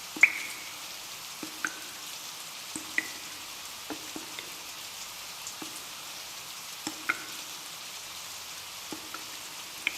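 Rain falling with a steady hiss, while heavy drops land irregularly on a hard surface, each giving a short ringing plink; the loudest comes just after the start.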